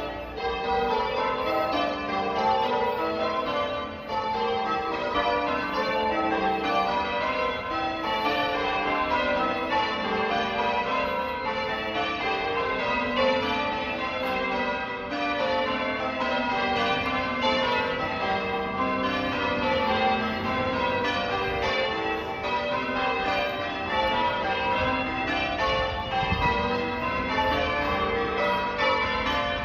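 Church tower bells rung in changes: a rapid, unbroken succession of bell strokes, the striking order shifting as the changes go on, each stroke ringing on under the next.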